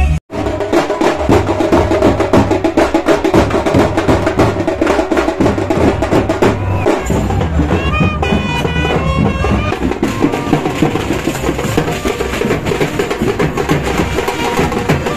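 Street brass band playing: trumpet and saxophones over a busy drum beat. The sound breaks off for an instant just after the start, and a quick run of short high notes comes about eight seconds in.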